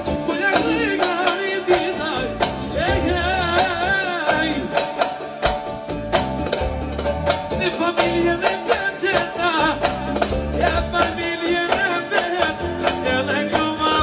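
Live tallava band music: a male singer sings into a microphone with wavering, ornamented vocal lines over a steady drum-kit beat and electronic keyboard.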